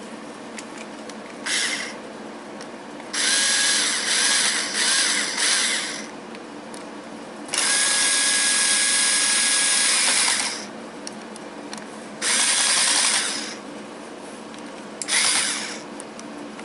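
A power drill running in five short bursts, the longest about three seconds, with a steady high whine while it spins and stops in between. It is typical of driving fasteners on a battery's bus-bar terminals.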